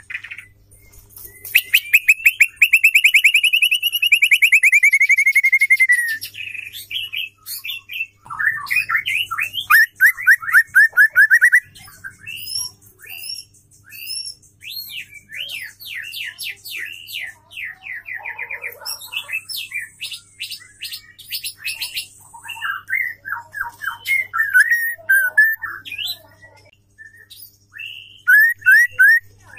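Female white-rumped shama singing: a long, fast rattling trill, then a run of quick down-slurred notes, followed by varied chirps and whistles. A faint steady low hum runs underneath.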